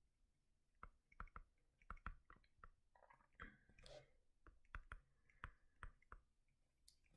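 Near silence with about a dozen faint, sharp clicks and taps scattered through it, and a brief soft rustle about halfway through.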